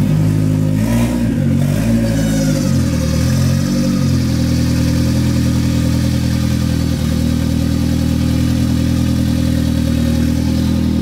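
Car engine freshly started after sitting, revved up and down several times in the first four seconds, then settling into a steady idle.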